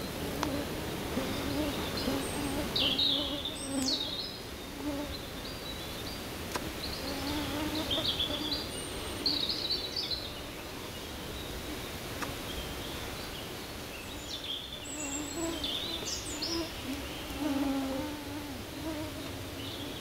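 Summer forest ambience: insects buzzing close by in a wavering, on-and-off drone, with small birds chirping in short high calls throughout.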